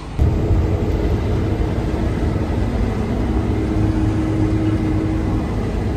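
Combine harvester's diesel engine running steadily under load: a low rumble with a steady hum over it, starting abruptly just after the start.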